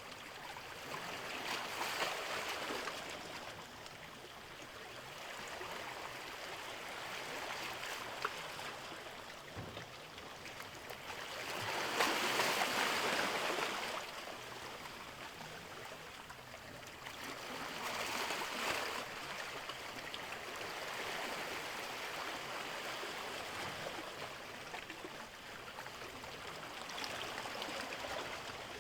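Small sea waves washing in and drawing back, the sound swelling and fading every several seconds, with the biggest wash about twelve seconds in.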